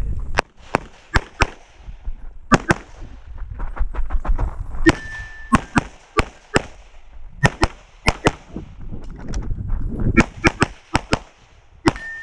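Rapid handgun shots fired in pairs and quick strings, about twenty in all, with short pauses while the shooter moves between target positions. Twice a shot is followed by a brief steel target ringing.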